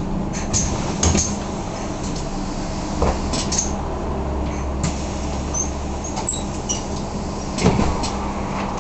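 Interior of a city bus standing with its engine idling: a steady low hum, with scattered clicks, knocks and short squeaks, the loudest knock near the end.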